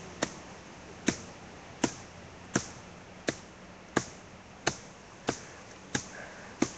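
Axe chopping into a small tree trunk: about ten sharp, even blows, roughly one and a half a second.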